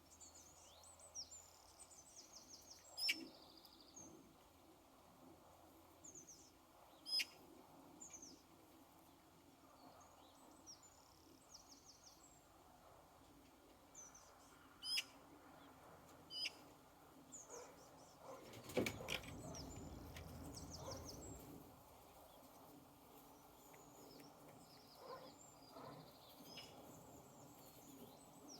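Small birds chirping faintly in quick runs of high notes. A few sharp taps stand out, and past the middle comes a louder rustle lasting about three seconds.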